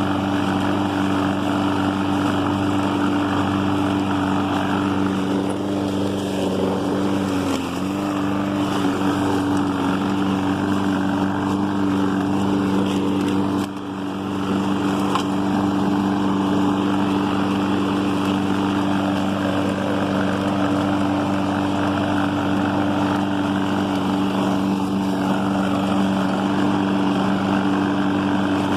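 Husqvarna all-wheel-drive walk-behind lawn mower engine running at steady speed while mowing. It briefly sags in pitch about eight seconds in and drops in loudness for a moment around fourteen seconds.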